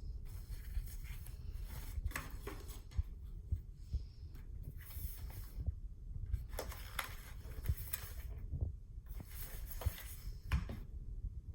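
Packaging and its contents being handled while unpacked: scattered rustles, soft knocks and clicks over a low rumble.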